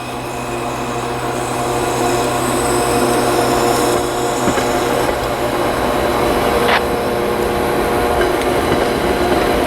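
Diesel locomotive running with a steady, many-toned hum, growing a little louder over the first few seconds, with a couple of sharp clicks.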